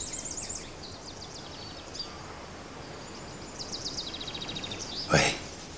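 Outdoor ambience with birds chirping in quick high trills, once at the start and again later on. About five seconds in comes a single brief, loud noise.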